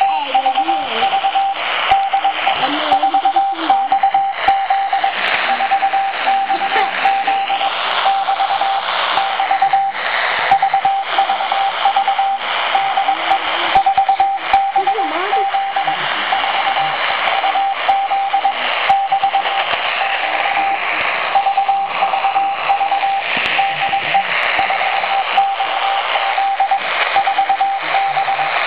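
Morse code (CW) received on a Sony shortwave radio at 4330 kHz: a single steady tone keyed on and off in dots and dashes over constant static hiss, with faint wavering tones from other signals now and then.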